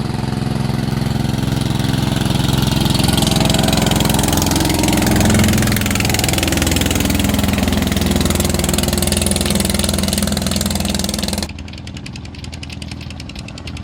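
Boat engine running under way, with a loud rushing hiss of wind and water spray over it; the engine's pitch shifts in the middle. Near the end the hiss cuts off suddenly and everything goes quieter, leaving the engine alone.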